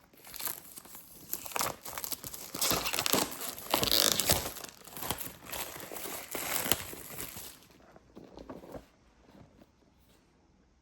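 Packaging being crumpled and torn open by hand, a dense crinkling and tearing that dies away near eight seconds, followed by a few light taps.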